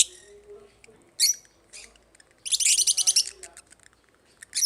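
African lovebirds chirping: a sharp, high call about a second in, then a rapid, chattering run of chirps lasting about a second around the middle.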